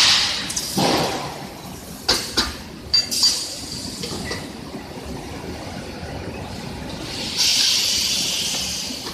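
Factory machine working on tubular-battery parts: a burst of hissing at the start and a longer one from about seven seconds in, with several sharp metallic clinks about two to three seconds in.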